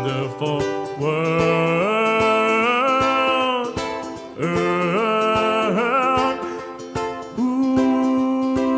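Background song: plucked strings strummed under a voice singing long, gliding notes in phrases.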